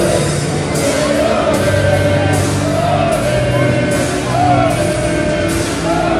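A song with singing over a steady instrumental backing, echoing through a football stadium.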